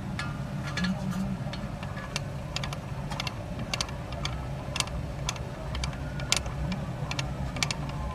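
Hand ratchet clicking in short irregular runs as the triple-square bolts holding the front wheel hub assembly to the knuckle are worked loose. A steady low hum runs underneath.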